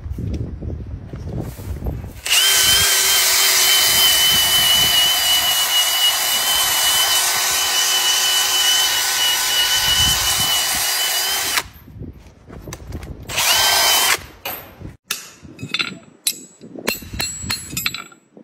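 Handheld power grinder with a sanding disc running at speed against a horse's hoof wall: a loud, steady high whine for about nine seconds, then a short second burst. A scattering of sharp knocks and clicks follows near the end.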